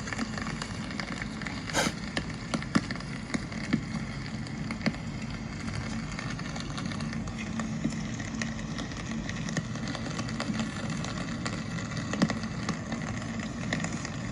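Steady rain falling on a city street: a constant hiss with scattered sharp taps of drops.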